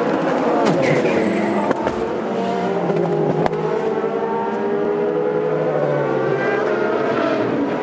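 Several open-wheel race car engines running at high revs together, their pitches sliding slowly and crossing as the cars pass, with a few sharp clicks.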